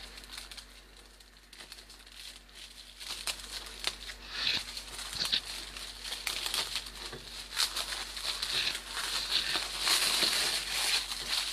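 Clear plastic film crinkling and rustling as hands wrap it around a small round of cheese. It is faint for the first second or so, then crinkles on and grows louder toward the end.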